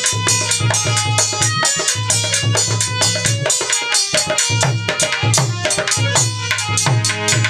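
Instrumental interlude of a ghazal: a dholak played with fast hand strokes, its bass head thudding in a steady rhythm, over sustained harmonium chords. The bass thuds drop out for about a second around the middle, then resume.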